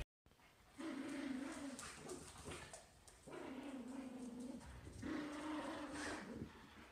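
Dogs growling in play while tugging at a toy: three long, low growls of about a second each, starting about a second in, in the middle and about five seconds in.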